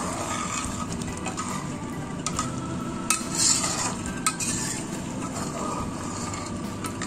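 A metal ladle stirs and scrapes a thick blended spice paste frying in oil in a wok, under a steady sizzle. The ladle clinks and scrapes against the pan now and then, loudest a little after three seconds in. The oil has separated out of the paste, a sign that it is nearly cooked.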